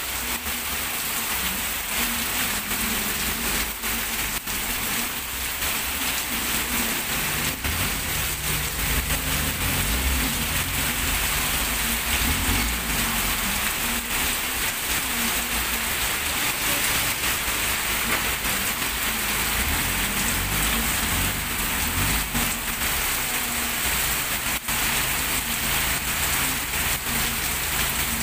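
Heavy rain pouring steadily onto a wet street, a continuous hiss of drops on asphalt and puddles. Cars, vans and motorbikes pass through it, adding a low engine hum and tyre noise on the wet road.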